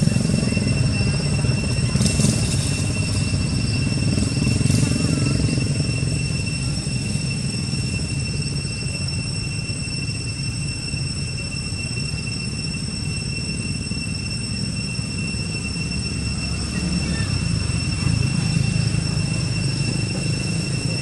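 Steady low rumble of outdoor background noise, with a constant high-pitched whine over it and a couple of faint brief rustles about two and five seconds in.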